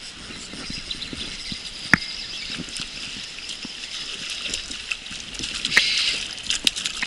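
Water splashing and pattering at the surface, with scattered sharp clicks, growing louder around the sixth second; a hooked trout being played and landed.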